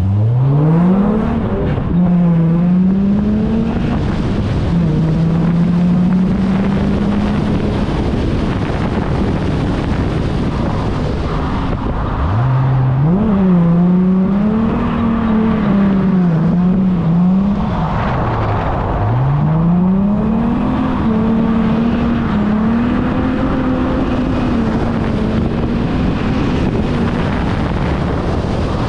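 Holden Calais V6 engine revving hard through a drift run, its revs rising and falling over and over and held high for stretches, with sharp drops and climbs back.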